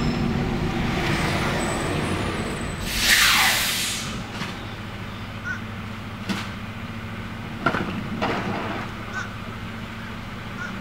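Rear-loader garbage truck's diesel engine running, with a loud hiss from its air brakes about three seconds in, falling in pitch over about a second, as the truck comes to a stop. A few sharp knocks follow.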